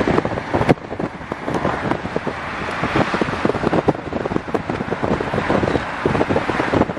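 Wind buffeting the microphone over a dense, irregular crackle of small knocks and rustles.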